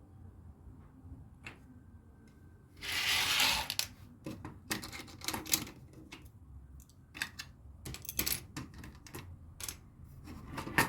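Plastic LEGO pieces being handled: scattered sharp clicks and clatters as bricks are picked up and pressed together, with a dense rattle of loose pieces lasting about a second, starting about three seconds in.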